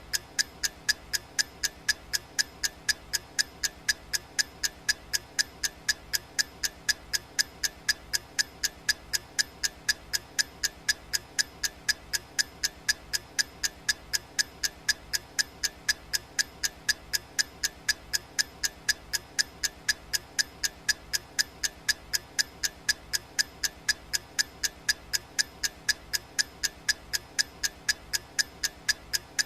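A clock ticking at an even pace, about two ticks a second: the ticking track of a digital countdown timer.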